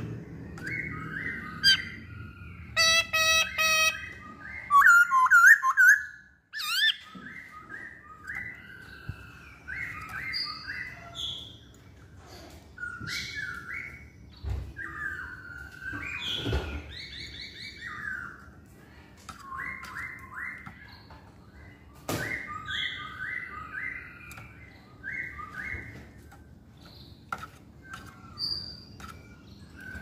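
Black-throated laughingthrush (poksay Hongkong) in full song: phrase after phrase of quick short whistled notes, with louder, higher whistles in the first few seconds. A few sharp knocks come in between.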